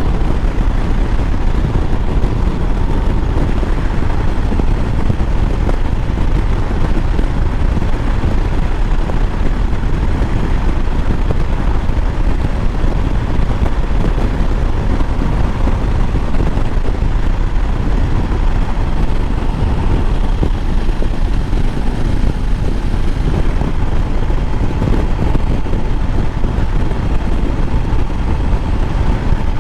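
Motorcycle riding along at a steady pace: engine running under a constant rush of wind noise on the microphone.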